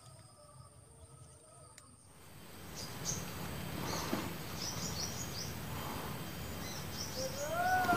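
Tropical outdoor ambience that swells in after a quiet first two seconds: small birds chirping in short high bursts and insects over a steady background hiss. Near the end a drawn-out pitched call begins, rising at first and then held.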